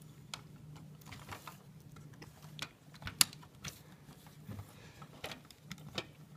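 Plastic Lego pieces clicking and tapping as sections of a built model are handled and set down on a glass tabletop: scattered light clicks, the sharpest about three seconds in.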